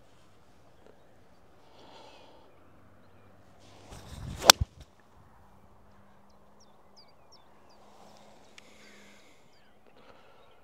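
A 7-iron swung at a golf ball on the tee: a short rising swish of the club about four seconds in, ending in one sharp, crisp click as it strikes the ball.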